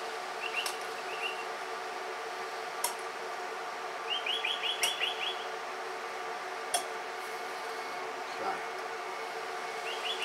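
Birds chirping in short, quick trills a few times over a steady background hum, with a few sharp clicks.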